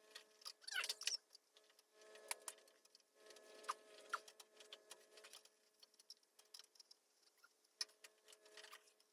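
Faint, scattered small clicks and taps from handling the van's door lock actuator and its metal linkage bar, with a brief squeak about a second in, over a faint steady hum.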